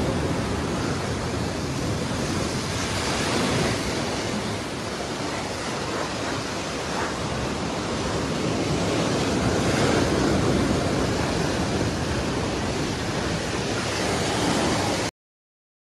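Hurricane-driven storm surf breaking and surging over a seafront road, with wind: a continuous rush of water noise that swells twice and cuts off abruptly near the end.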